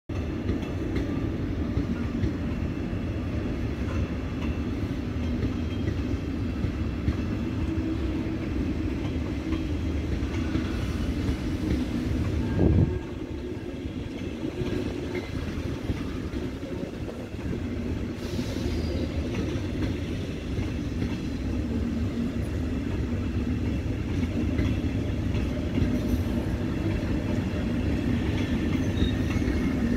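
Red double-deck DB Regio regional train rolling past, a steady rumble of wheels on rails, with one sharp knock about 13 seconds in.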